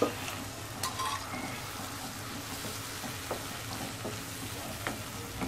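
Cooked toor dal poured into a pan of sizzling onion-tomato masala and stirred in, a wet sizzle with a wooden spatula scraping and knocking against the pan. A sharp knock right at the start, then a few lighter knocks.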